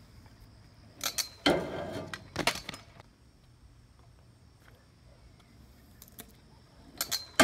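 Stunt scooter clattering against a steel guardrail: sharp metal clanks and rattling about a second in, lasting a couple of seconds, and again near the end.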